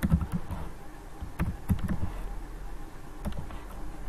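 Typing on a computer keyboard: three short runs of keystrokes with pauses between, over a low steady hum.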